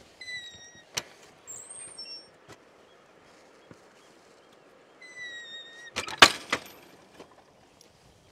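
Several short, high whistled calls, each a steady note, in the first two seconds, and a longer call about five seconds in. About six seconds in comes a quick clatter of sharp clicks, the loudest sound.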